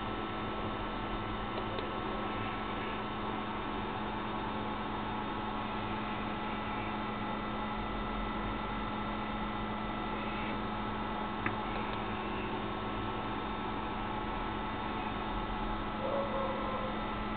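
Steady electrical hum over a background hiss, with a single faint click about eleven seconds in.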